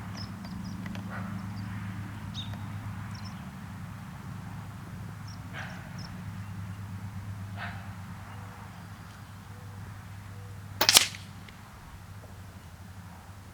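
A single air rifle shot about eleven seconds in, a sharp crack with a short tail, from an Air Venturi Avenger .22 PCP. Before it come a couple of faint clicks, and a steady low hum runs underneath.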